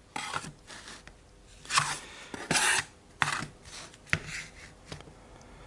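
A series of short rubbing and scraping noises, about seven in all, with a few light clicks: objects being handled and set down on a work surface.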